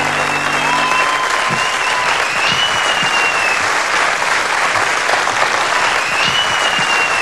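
Studio audience applauding, with a few long whistles over the clapping. The band's last chord dies away about a second in.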